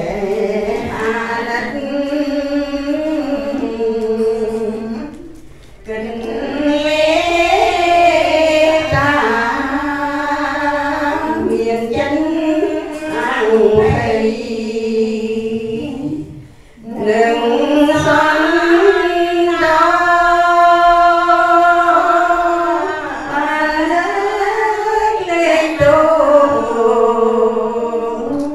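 A group of laywomen chanting Buddhist devotional verses together in sustained, sung phrases, led by one voice over a microphone. The chant breaks off briefly twice, about six and seventeen seconds in.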